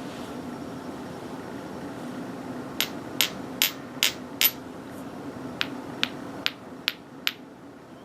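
A Japanese steel-faced sledgehammer (genno) strikes about ten times in quick succession, roughly two strikes a second, starting about three seconds in. The first five strikes are harder and each gives a short, bright ring; the last five are lighter.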